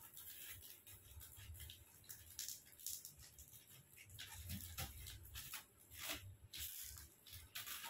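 Scissors cutting the plastic wrapping of a rolled foam mattress: faint, irregular snips and crinkles of the plastic film.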